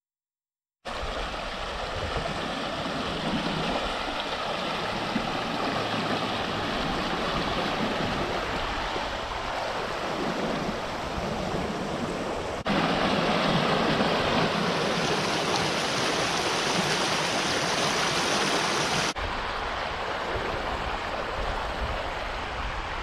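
Running stream water, a steady rush without rhythm or tone. Just past halfway it cuts abruptly to a louder, fuller rush, then drops back a few seconds before the end.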